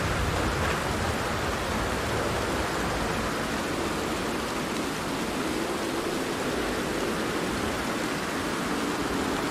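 Steady rain falling on a tent, a dense even hiss. A low thunder rumble dies away about a second in.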